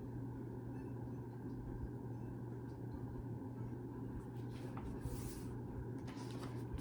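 Quiet room tone with a steady low hum, and faint rustling of paper around the middle of the pause, as from a picture book's page being handled.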